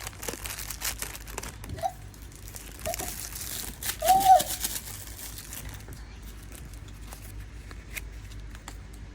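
Paper and packaging crinkling and rustling as a mini memo book and its tiny sheets are handled, with scattered light clicks; the rustling comes in spells at the start and again around three to four seconds in.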